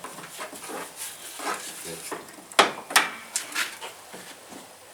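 A few sharp knocks and clatter of things being handled, clustered about two and a half to three and a half seconds in, with faint voices in between.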